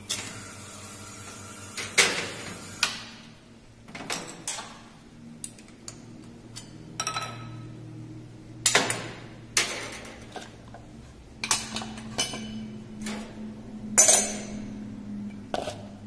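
Metallic clinks and knocks as the stainless-steel portafilters and filter baskets of a Wega espresso machine are handled and taken out of the group heads, with the sharpest knocks about 2, 9 and 14 seconds in. A low steady hum runs underneath.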